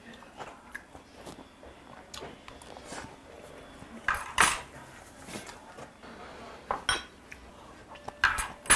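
Metal chopsticks clicking and scraping against porcelain side-dish bowls during a meal, in many small, light taps, with two louder noisy sounds about four and a half and eight and a half seconds in.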